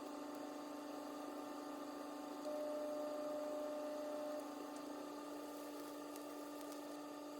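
Steady electrical hum. A second, higher tone joins it about two and a half seconds in and stops again about two seconds later.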